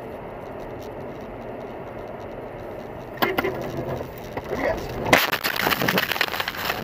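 Car crash heard from inside the car. Steady road noise from the tyres on a snowy road, a single sharp knock about three seconds in, then, a little after five seconds, a sudden loud impact followed by a rapid crunching and clattering that goes on to the end.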